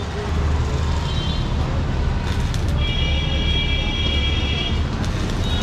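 A steady low mechanical rumble, with a high, steady ringing tone held for about two seconds in the middle.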